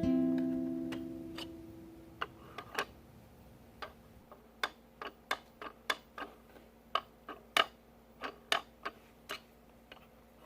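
An acoustic guitar chord dies away, then a string of about twenty irregularly spaced, sharp plastic clicks: a spacebar keycap tapping against a flat surface as it is pressed and checked for warp.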